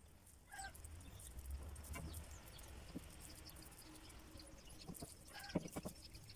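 Quiet outdoor background with a low rumble and faint animal calls, with soft taps and squishes as mince-filled zucchini slices are set into a glass baking dish, a few louder near the end.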